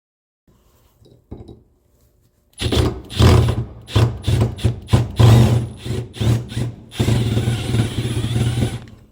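Power drill running in reverse against a Phillips screw in several short bursts, then a longer run of about two seconds near the end, its bit grinding in the screw's cross recess to strip it.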